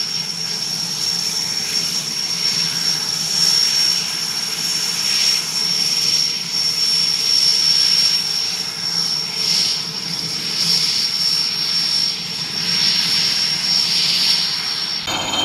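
IAR 330 Puma military helicopter running on the ground with its main rotor turning, ready for take-off: a steady high turbine whine over the engine and rotor noise. The whine cuts off abruptly near the end.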